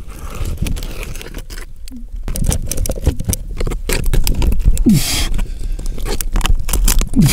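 Scraping, rustling and knocking of a caver crawling through a tight lava tube, with clothing, body and gear rubbing and bumping on rough lava rock. The sounds are close and irregular.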